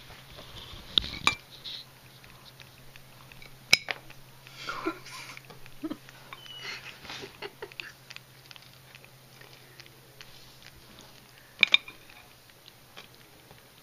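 A metal spoon clicking and clinking as a small terrier-cross puppy is fed from it, with scattered small eating noises. A few sharp clinks stand out, about a second in, near four seconds and near the end.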